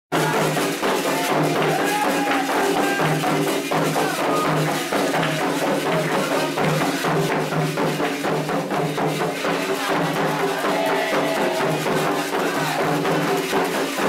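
Candomblé ceremonial music: hand drums and rattling percussion beating a fast, steady rhythm, with voices singing held notes over it.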